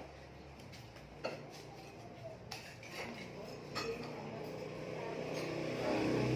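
A spoon clinks against a bowl of bakso a few times. Near the end a passing vehicle's engine grows louder.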